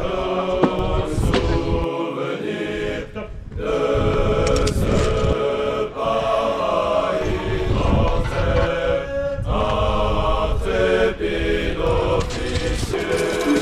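Background music of choir-like chanting, sung in long held phrases.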